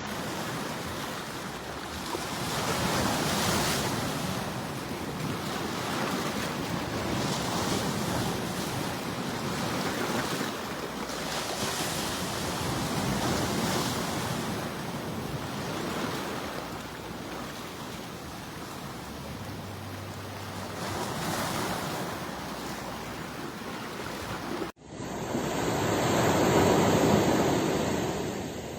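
Ocean waves breaking and washing on the shore, the surf swelling and easing every few seconds. There is a brief break in the sound about three-quarters of the way through, followed by a louder surge.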